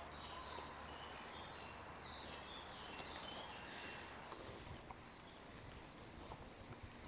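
Quiet outdoor background with small birds chirping briefly and high-pitched, over and over. A faint low hum fades out about halfway through.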